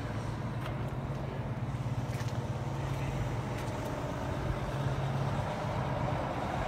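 A car engine idling with a steady low hum.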